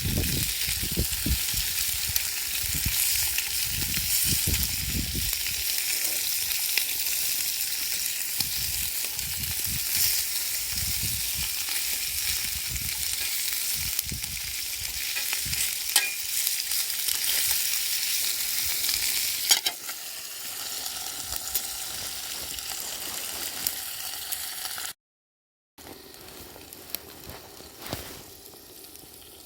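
Food sizzling in a pan over a wood fire, a steady hiss with small crackles, dropping in level about twenty seconds in and cutting out briefly near the end.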